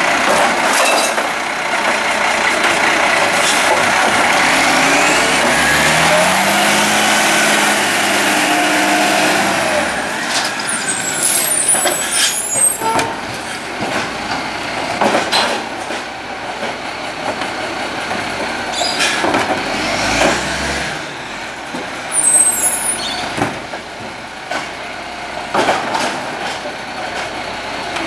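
Iveco Acco side-loader garbage truck at a bin pickup: the diesel engine revs up as the hydraulic arm lifts and empties the bin, with a rising whine a few seconds in. Air brakes then hiss twice as the truck moves on along the street, with occasional knocks.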